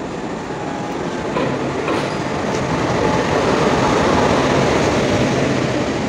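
Passenger train coaches rolling past close by along a station platform, a steady rumble of wheels on rails with a few sharp clicks. The noise builds as the train comes alongside and is loudest about four seconds in.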